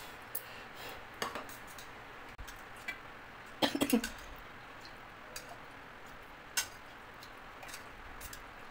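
Steel spoon clinking and scraping against stainless-steel pots and containers as soup is spooned over rice, with scattered sharp clinks and the loudest cluster about four seconds in.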